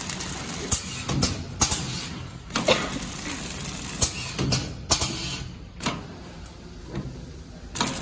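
Zipper packing machine running, a steady mechanical rattle with a sharp clack about once a second.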